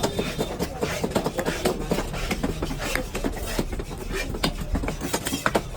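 Rapid, irregular knife chops and knocks as a ray fish is cut up, several sharp strikes a second.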